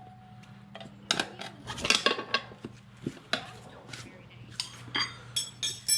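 Metal tools clinking and rattling against one another in a string of sharp knocks, with a ringing metal strike near the end. A low steady hum runs underneath.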